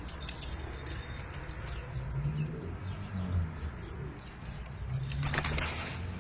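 Domestic pigeons cooing, low and repeated, with a short noisy rustle about five seconds in.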